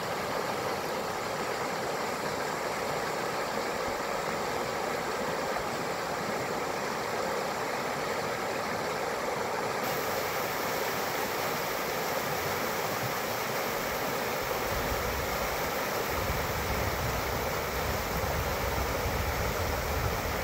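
Fast-flowing trout stream rushing over shallow riffles and rocks, a steady rush of water. About ten seconds in the rush turns brighter and hissier, and from about two-thirds of the way through a low rumble sits under it.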